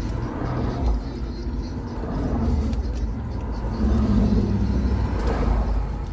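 Steady low rumble of street traffic, swelling about four seconds in as a vehicle goes by.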